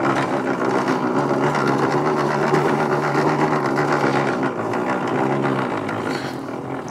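Petrol cylinder lawnmower pushed across grass with its engine off: a steady, rapid mechanical whirr and clatter from its turning rollers and drive gears, dying away near the end as it stops.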